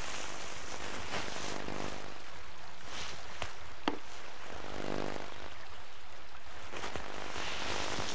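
Steady rushing of a fast-flowing river. A faint humming drone rises and fades twice, and there is one sharp click a little before the four-second mark.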